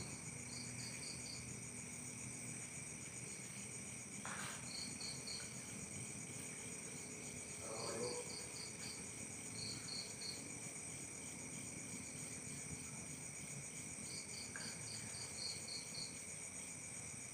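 Night insect chorus: a steady, high-pitched shrill trilling of insects, with a cricket chirping in short runs of three to six pulses every second or two. A couple of faint brief rustles come about four and eight seconds in.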